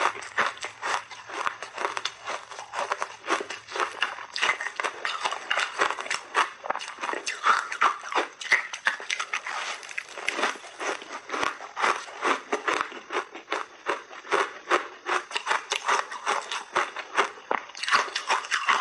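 Close-up crunching and chewing of frozen layered crushed-ice blocks: a dense, unbroken run of sharp crackles and crunches.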